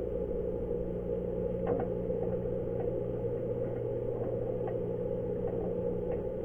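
Underwater ambient noise picked up by a submerged camera on a crab pot: a steady low hum and rush, with a few faint clicks scattered through it.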